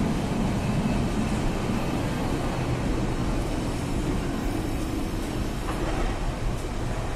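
Container freight train's wagons rolling past at steady speed, a continuous rumble of steel wheels on the rails.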